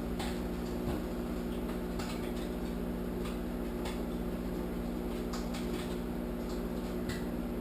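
Microwave oven running with a steady hum while cooking bacon on paper towels, with scattered faint ticks and pops through it.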